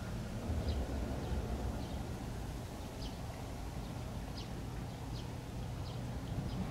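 A steady low rumble with faint, scattered short chirps of small birds, about a dozen, irregularly spaced.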